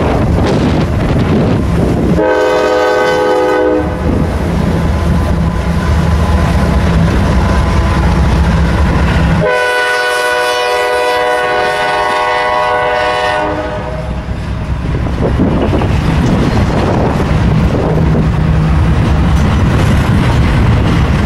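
Diesel freight locomotive horn sounding twice, a short blast of about two seconds and then a longer one of about four seconds, each a chord of several notes. Between and after the blasts, the locomotives' engines rumble steadily.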